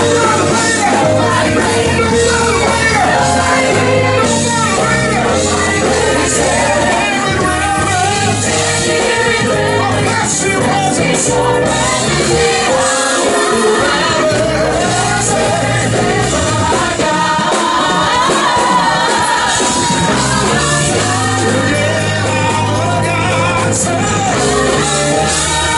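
Live gospel choir singing through a PA system over amplified accompaniment with a steady bass line. The bass drops out briefly a little past the middle.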